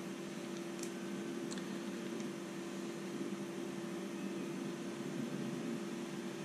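Steady background hum holding a constant low tone, with a few faint light clicks in the first couple of seconds as a small hex driver works on the plastic parts of an RC crawler chassis.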